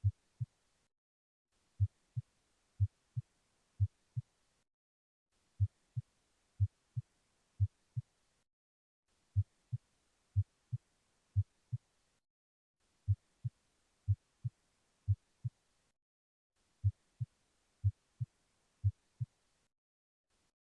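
Heart sounds heard through a stethoscope at reduced intensity: a low lub-dub pair, S1 then S2, about once a second. After every three beats it falls silent for about a second.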